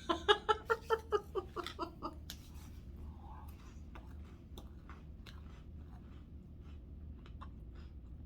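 A woman laughs in quick, even pulses for about two seconds, then chews with faint, crisp crunches of Ritz crackers and chicken salad.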